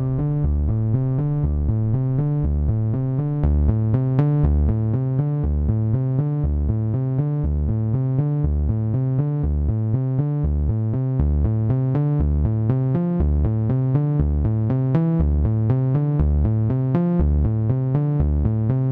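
Electronic background music: a synthesizer over a steady drum-machine beat with a repeating bass line.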